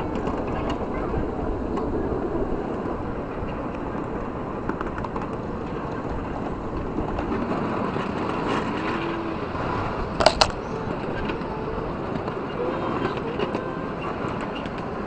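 Ride-on miniature railway train rolling along its track, heard from a riding car: a steady rumble of wheels on rail, with a sharp double clank about ten seconds in.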